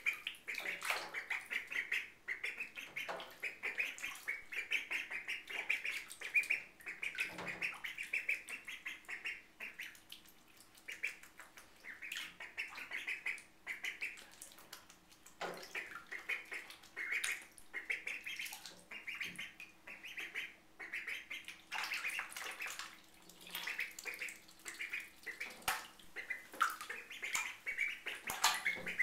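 Indian runner ducklings peeping in rapid runs of short high calls with brief pauses, over light splashing of bathwater.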